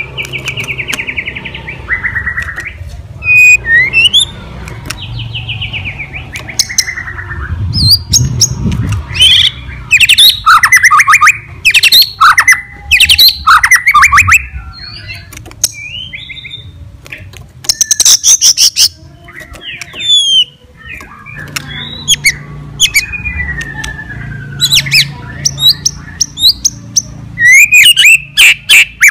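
White-rumped shama (murai batu) singing a loud, varied song: gliding whistled phrases mixed with fast rattling, clicking trills, with short pauses between phrases.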